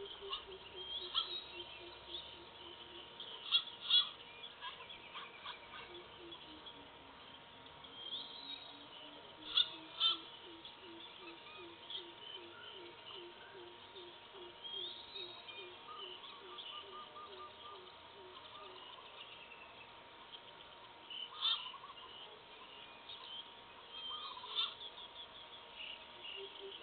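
Forest birds calling: one bird gives a long series of low, evenly spaced hoots that sink and then rise in pitch, stops, then starts again near the end, while others give sharper, higher calls a few times.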